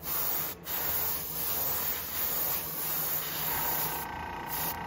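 Airbrush spraying iridescent paint in a steady hiss, with a brief break just after the start. A faint steady whine joins about three and a half seconds in.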